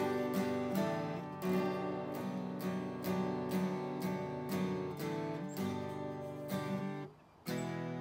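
Seagull Coastline Cedar S12 twelve-string acoustic guitar, with a solid cedar top, being strummed in a steady rhythm of ringing chords. The sound stops for a moment about seven seconds in, then the strumming starts again.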